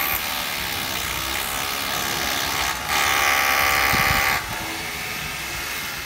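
A small power tool's motor running with a high whine, switched on abruptly, running louder for about a second and a half in the middle before easing back.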